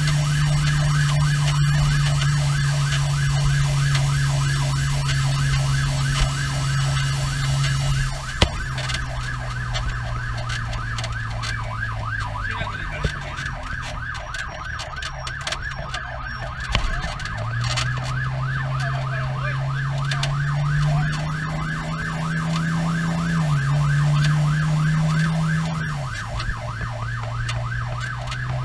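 Pierce fire engine's siren sounding in a fast, regular up-and-down yelp, heard from inside the crew cab. Under it runs the truck's diesel engine drone, which climbs in pitch and drops back a few times as it shifts gears.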